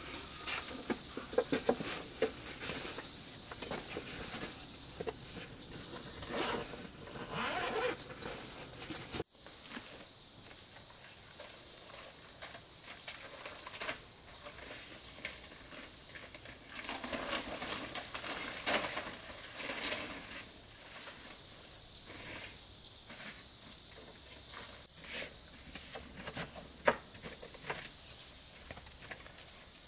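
A steady chorus of forest insects, a high trill at two pitches, under intermittent rustling, clicks and knocks, with one sharp knock near the end.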